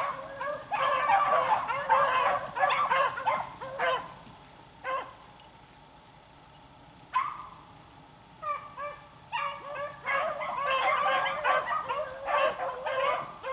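A pack of beagles baying on a rabbit's scent, several voices at once: the chase is on. The cry thins to a few single calls about four seconds in, then picks up to full cry again after about nine seconds.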